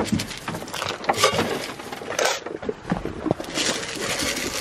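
Dry grain rattling and scraping in a metal can as it is shaken out, with rustling hay and scattered small knocks, the loudest bursts about a second and two seconds in.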